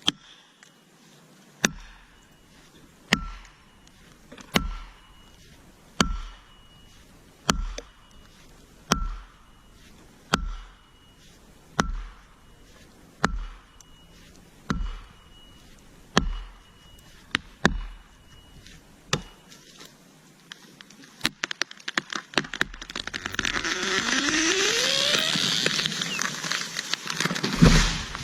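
About a dozen heavy strikes at an even pace, one every second and a half, each with a short metallic ring, as in driving a felling wedge or chopping. Near the end a chainsaw starts up and runs, its pitch rising.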